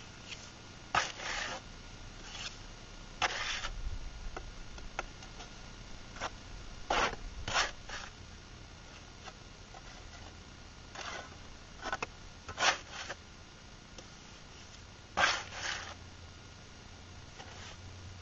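Mason's trowel scraping through mortar in short strokes, often two in quick succession, a few seconds apart.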